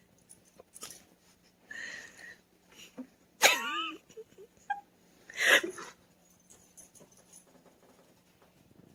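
A pet animal making vocal sounds: a short breathy sound about two seconds in, then a loud wavering cry that bends up and down in pitch, then another loud breathy sound about a second and a half later.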